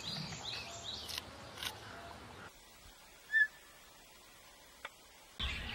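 Birds chirping in the background, with short, curving high calls over a light outdoor hiss. After a sudden drop in level there is a single short, high chirp about three and a half seconds in.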